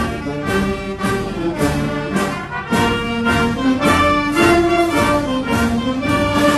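Background orchestral music, with brass instruments playing held notes.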